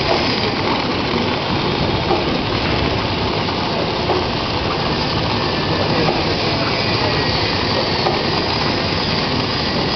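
Paper bag-forming machine running, a steady dense mechanical noise without pauses.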